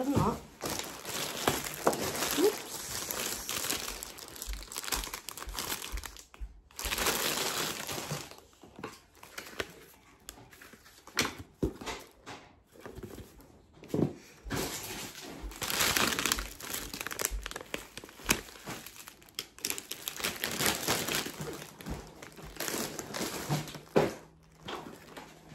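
Plastic food packaging and bags crinkling and rustling in irregular bursts as groceries are picked up and handled, with a few short pauses and the odd light knock of an item being set down.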